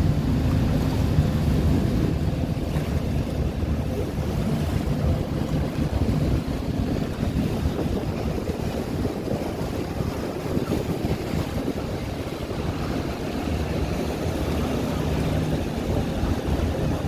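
Steady rush of the Rhine Falls' water mixed with a low engine hum that fades in the middle and comes back, with wind buffeting the microphone.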